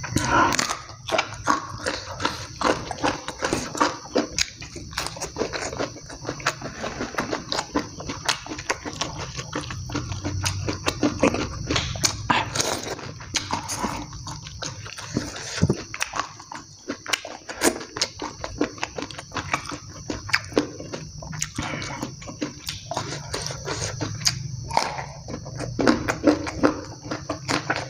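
Close-miked, wet mouth sounds of a person eating spicy food with his hands: chewing, lip smacks and sucking at his fingers, as many quick irregular clicks and smacks.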